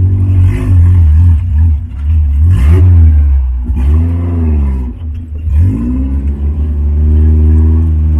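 Off-road jeep's engine revving up and falling back several times as it drives over rough ground, over a heavy steady low rumble.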